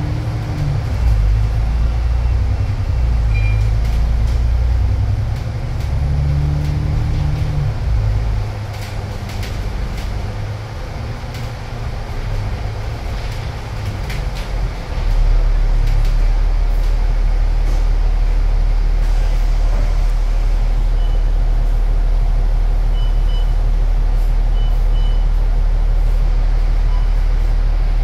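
Alexander Dennis Enviro500 double-decker bus heard from inside its upper deck: the engine and drivetrain rumble with shifting pitch as it drives, ease off after about eight seconds, then from about fifteen seconds in settle into a steady low drone as the bus stands idling. A few short, faint high beeps sound around twenty seconds in.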